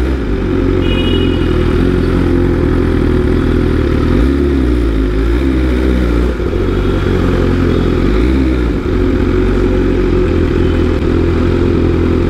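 Superbike engine running at low revs while creeping through stop-and-go traffic, the note rising and dipping slightly with light throttle.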